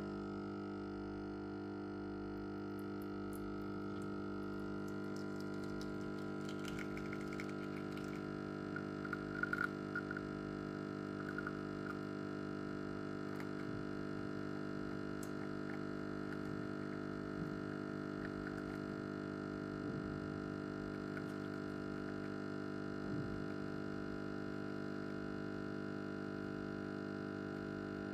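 Espresso machine pump humming steadily while it pulls a shot. A few faint spits and crackles come as the coffee starts to flow, about seven to twelve seconds in.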